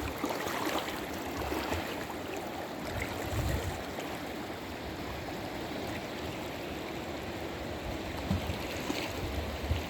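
Steady rush of the Chattooga River, a free-flowing mountain river running over rocks and rapids, with a few low rumbles.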